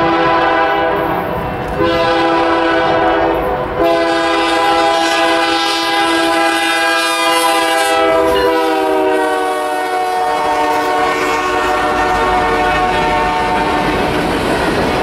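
Freight locomotive's multi-note air horn blowing in long blasts as the train approaches, its chord dropping in pitch as the lead engine passes about eight seconds in. The horn fades out near the end, leaving the rumble and clatter of covered hopper cars rolling past.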